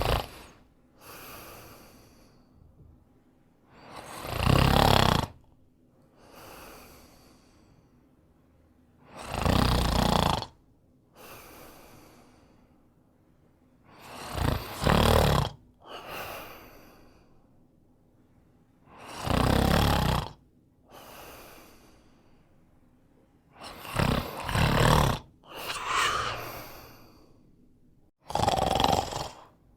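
A man snoring loudly in a regular rhythm, with a loud snore about every five seconds and a softer breath between them. A few of the snores come in two quick parts.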